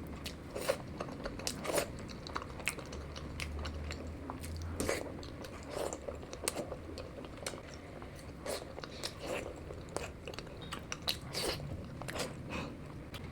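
Close-miked mouth sounds of chewing and biting chicken biryani, with irregular wet clicks and crunches several times a second. A faint low hum runs underneath.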